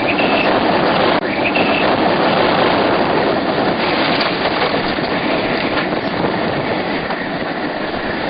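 Tornado wind rushing around a storm chasers' vehicle: a loud, dense, steady noise with the freight-train quality of a tornado's roar.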